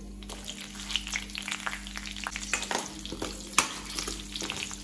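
Big chunks of onion sizzling and crackling in hot oil in a steel kadai, stirred with a steel spoon that scrapes and clicks against the pan, with one sharper clink about three and a half seconds in.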